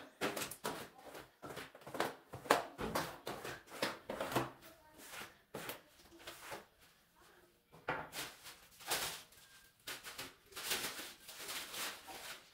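A long-handled broom swishing in quick repeated strokes across a wet tiled floor, pausing for a few seconds midway and then starting again.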